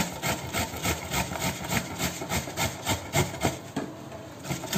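Raw mango being grated by hand on a stainless steel grater: quick, regular scraping strokes, about four a second, easing off near the end.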